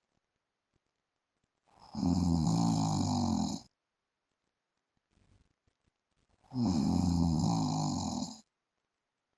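A man snoring in his sleep: two long snores, each about two seconds, some five seconds apart, with silence between them.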